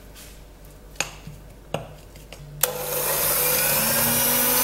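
A few knocks as things are handled, then an electric hand mixer switches on about two and a half seconds in and runs steadily with a whine, its beaters creaming ghee and icing sugar.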